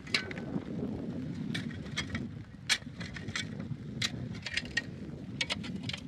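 Wind buffeting the microphone in a low rumble, with irregular sharp clicks and ticks, about one or two a second.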